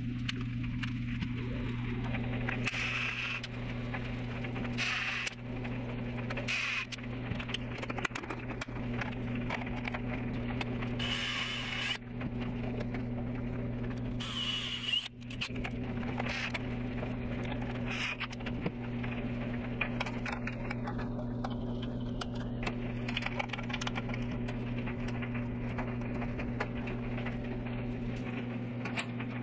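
Milwaukee brushless cordless drill driving screws in several short runs of a second or so, each a whirring whine, most of them in the first half, over a steady low hum.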